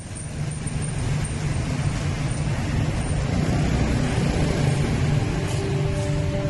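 Motorbike engines and street traffic: a steady engine rumble with road noise. Soft music fades in during the second half.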